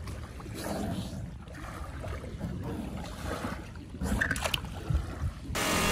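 Low wind rumble on the microphone, with a few plastic clicks and knocks about four seconds in as a toy combine harvester is gripped and moved by hand. Near the end a loud rushing noise cuts in suddenly.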